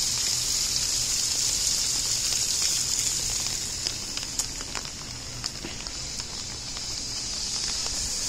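Steady rain hiss, with scattered raindrops tapping in the second half.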